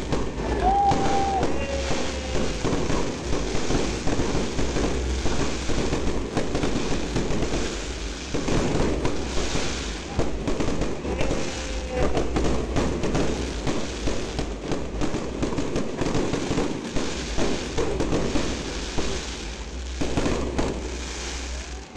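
Fireworks display: a continuous barrage of aerial shells bursting and crackling in rapid, overlapping bangs, with a couple of brief whistling tones among them.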